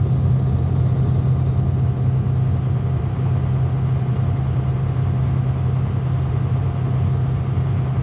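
Combine harvester's diesel engine running steadily, a low, even drone with no change in speed.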